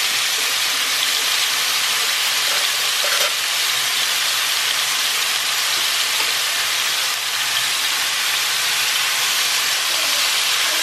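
Diced alligator meat sizzling steadily as it browns in hot oil in a cast-iron skillet.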